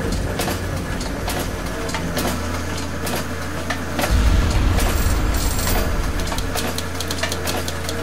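Sound-design machinery effects for an animated intro: a steady low mechanical rumble with many sharp clicks and clanks running through it, swelling louder about four seconds in.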